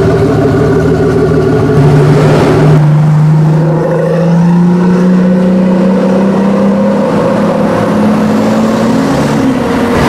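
Pagani supercar's Mercedes-AMG V12 engine pulling away at low revs, its note holding steady for a few seconds and then climbing slowly in pitch as the car gathers speed.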